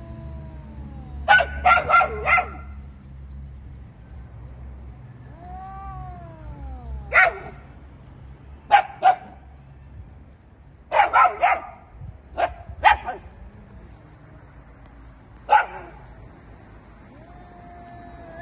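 Dogs barking in short, sharp bursts: a quick run of four barks about a second in, then single barks and small clusters scattered through, the last near the end. About six seconds in comes one long yowl that rises and falls, from a cat facing the dogs.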